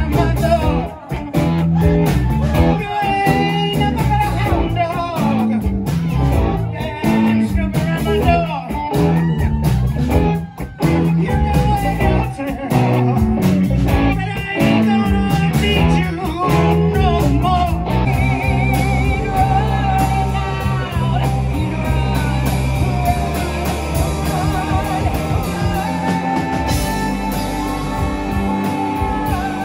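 Live rock band playing loud: electric guitars, bass guitar and drum kit under a lead vocalist singing into a microphone. About two-thirds of the way through, the music changes to a different song with a different singer.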